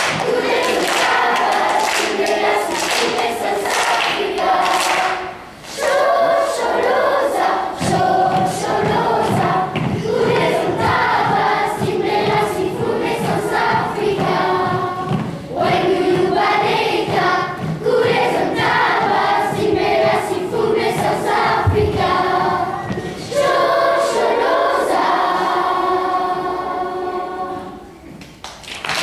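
Group of children singing a song together as a choir, with a steady beat joining about eight seconds in. The song ends shortly before the end.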